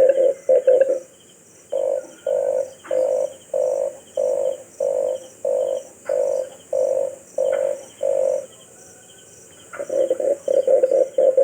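Red collared dove calling in deep, throaty notes: a quick run of notes, a pause, then about eleven evenly spaced coos a little over half a second apart, and another quick run near the end.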